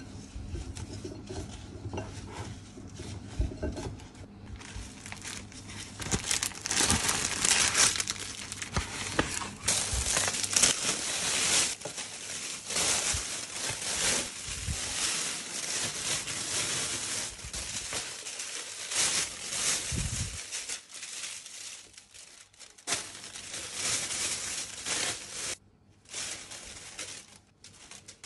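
Clear plastic roasting bag crinkling in irregular rustles as gloved hands open it and fill it with chunks of potato and meat, with a few short pauses near the end. The first few seconds are softer handling of potato pieces in a glass bowl.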